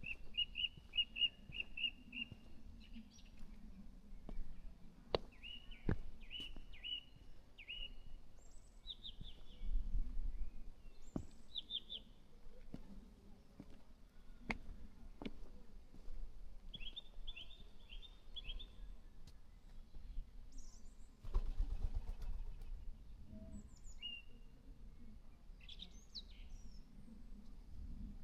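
Garden songbirds singing: a bird repeats a phrase of quick, even notes several times, among shorter higher calls. There are a few sharp clicks, and a short rush of noise about three quarters of the way through.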